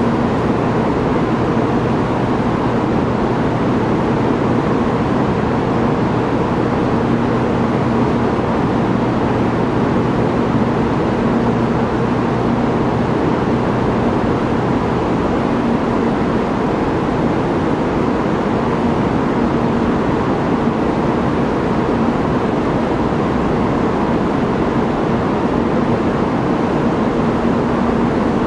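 Steady background noise of an enclosed high-speed rail station platform, with a faint low hum running through it; no train is moving.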